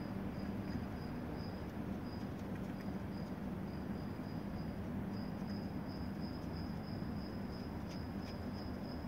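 A cricket chirping in short pulses, about three a second, running together more closely in the second half, over a steady low hum.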